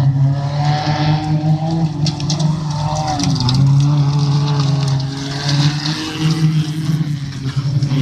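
A pack of first-generation Fiat Panda race cars on a dirt autocross track, several engines running hard together at steady high revs, with a brief dip in pitch about three seconds in. Scattered sharp clicks sound over the engines.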